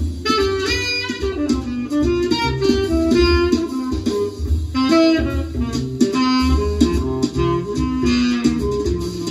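Recorded instrumental music, a melody of plucked notes over a bass line, played through a pair of vintage Holimar 3/8 loudspeakers driven by a NAD 304 amplifier and heard in the room.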